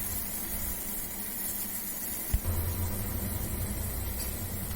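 Pot of rasam boiling hard over a gas stove flame: a steady hiss with a low hum, and a single short knock about two seconds in.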